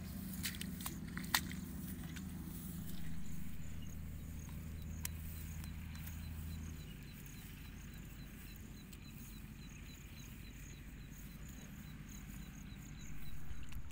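Open-field ambience: a steady low hum that stops about seven seconds in, and a faint, regular chirping about three times a second. A few sharp clicks come in the first second or two.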